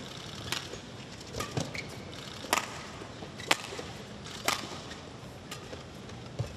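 Badminton rackets striking a shuttlecock in a rally: a series of sharp cracks, the loudest about a second apart through the middle.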